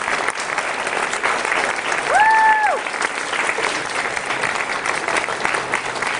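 Steady applause from a hall full of people clapping. About two seconds in, one high cheer rises, holds for half a second and drops away.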